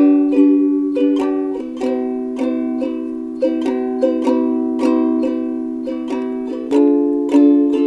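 Background music: a plucked string instrument playing sustained chords and a picked melody at a steady pace, with no singing.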